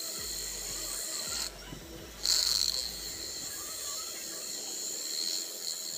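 A small DC motor spinning a homemade PVC pulley while a blade is held against its rim, cutting plastic off it like a lathe. The steady high whine stops for a moment about a second and a half in and comes back loudest just after two seconds.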